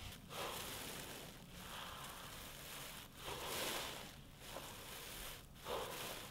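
A man breathing slowly and deeply in and out, several audible breaths one to two seconds apart.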